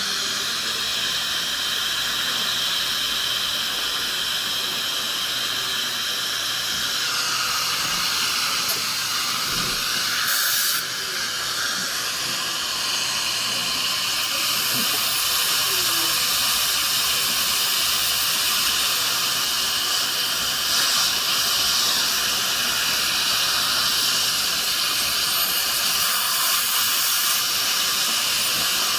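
Dental equipment running steadily: a high-pitched whine over a strong hiss, typical of an air-driven high-speed handpiece with its water spray and the suction. The whine shifts in pitch about seven seconds in and dips briefly a few seconds later.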